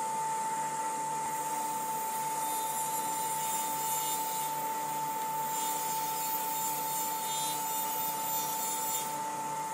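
Powermatic table saw running with a steady whine, its blade ripping thin strips of hardwood fed along the fence. The hiss of the cut swells while the wood is in the blade and drops away near the end.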